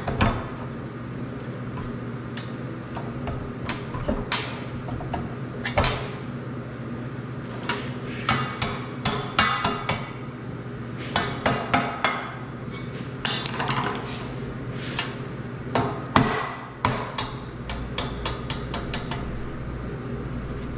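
Ball-peen hammer tapping steel shims in under a steel pipe joint to raise it into line. The metallic taps come singly and in quick clusters of several, over a steady low hum.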